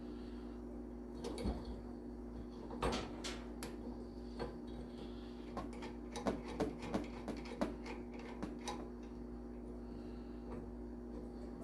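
Scattered light clicks and knocks of snowblower chute-cable parts and fittings being handled and fitted, with a quick run of clicks between about six and eight seconds in, over a steady low hum.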